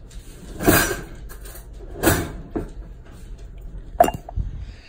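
Kitchen handling noises as food containers are taken out and moved: three short clattering sounds about a second and a half apart, the last a sharp click near the end.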